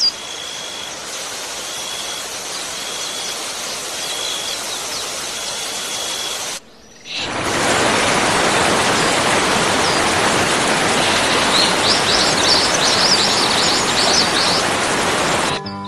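Steady rush of a waterfall with birds chirping over it. The water sound breaks off for a moment about seven seconds in and comes back louder, and a run of quick bird chirps comes near the end.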